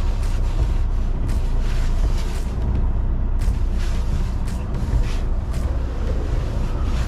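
Semi truck's diesel engine running with a low, steady rumble, heard inside the cab while the rig backs slowly. Short irregular hissy ticks come and go over it.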